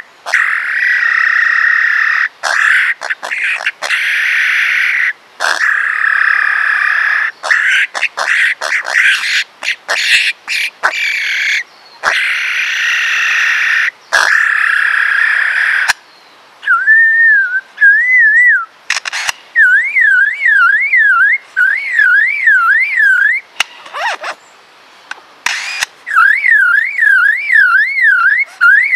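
Lyrebird singing a loud medley of its calls. For the first half comes a dense, harsh, chattering run broken by short gaps. After that a clear whistle wavers rapidly up and down, about two or three times a second, in several bouts.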